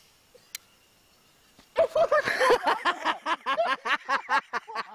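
Loud, rapid laughter breaks out about two seconds in, a quick run of short 'ha' bursts, after a single light click about half a second in.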